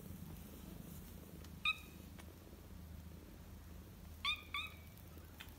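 Kitten mewing: three short, high-pitched mews, one at about a second and a half in and a quick pair at about four seconds in.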